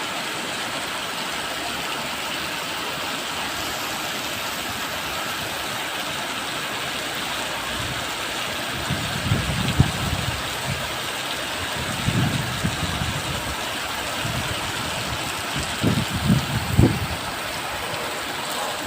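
Steady hiss of heavy rain, with three low rumbles swelling up and fading away about halfway through and again near the end.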